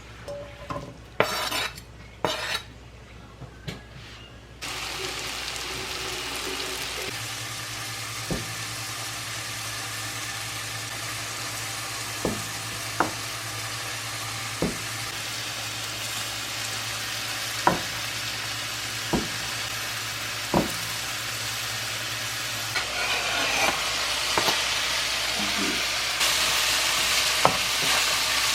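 Food frying in a pan: a steady sizzle that starts suddenly about four and a half seconds in, after a few knocks, with a utensil now and then clicking against the pan as it is stirred. The sizzle grows louder near the end.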